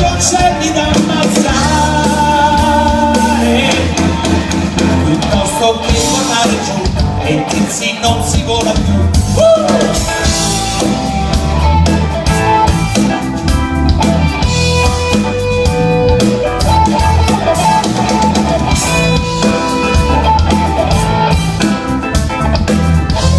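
Live rock band playing with drum kit and guitar, a steady beat under melodic lines, with no words sung.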